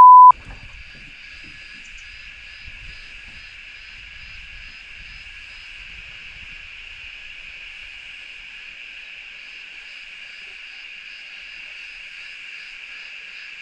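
A loud single-pitch bleep cuts off just after the start, typical of an edited-in censor bleep. After it comes a steady high-pitched chorus of insects.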